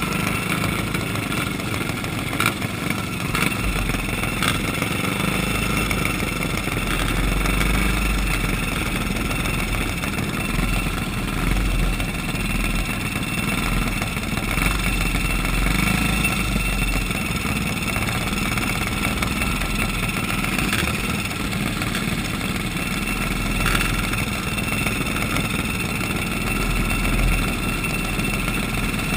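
Small single-cylinder flathead kart engines (Briggs & Stratton flathead class) idling steadily together in a line of karts, with a few small rises in level.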